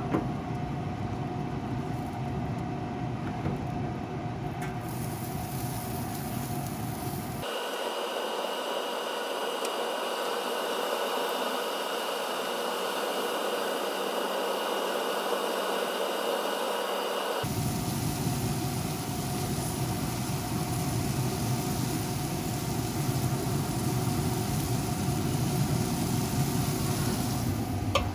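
Pellet grill running with a steady fan hum. The low rumble drops out for about ten seconds in the middle, and there are a few sharp clicks near the end.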